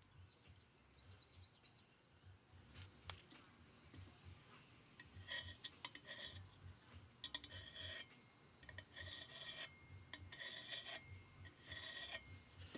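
Metal scribe scratching a line onto steel square tubing: faint, short scratching strokes, one after another from about five seconds in.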